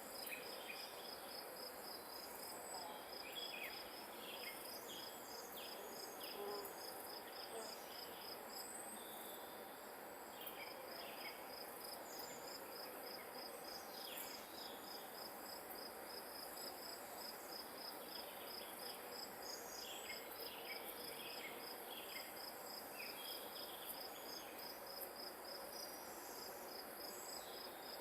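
A grass insect chirping in an even, fast pulsed trill at one high pitch, pausing briefly about nine seconds in. Short bird chirps come and go over a steady outdoor hiss.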